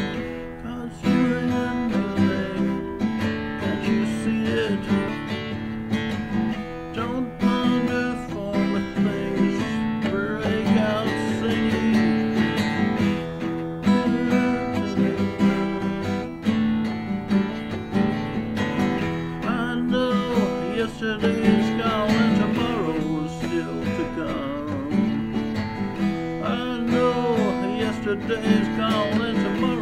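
Acoustic guitar strummed steadily through a repeating riff, with a man's voice singing along over it from about ten seconds in.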